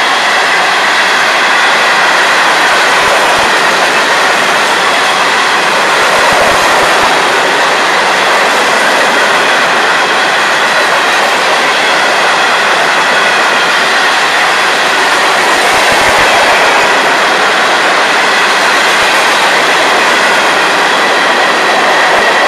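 Freight train hopper cars rolling past close by: steel wheels on rail make a steady, loud rolling noise with some clickety-clack. A few steady high tones run through it.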